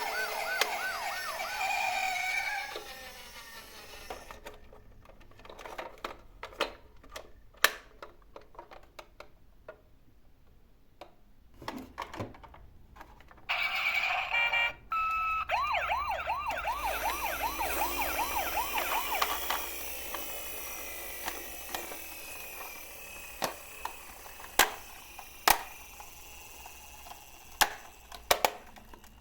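Toy emergency-vehicle siren sounds: a fast warbling siren at the start and again in the middle, with a steady high electronic tone just before the second warble. In between come scattered sharp clicks and knocks.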